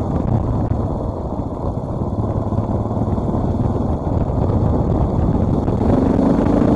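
Dual-sport motorcycle engine running as the bike is ridden, a steady low rumble that gets a little louder near the end.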